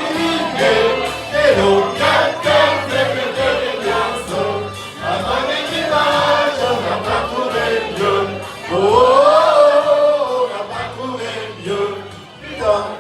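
A group of voices singing together over backing music, with a steady bass line under a long held, rising and falling phrase about nine seconds in.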